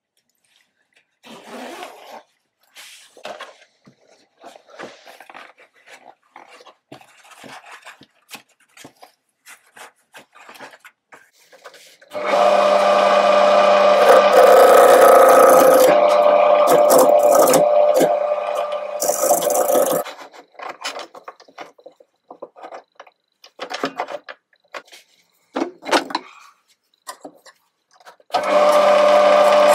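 Wood lathe running with a hand-held gouge cutting a spinning Australian lacewood bowl blank: a steady motor hum under a rough, scraping hiss of the cut. It starts abruptly after a stretch of faint knocks and clicks of handling at the lathe, runs for about eight seconds, stops, and starts again near the end.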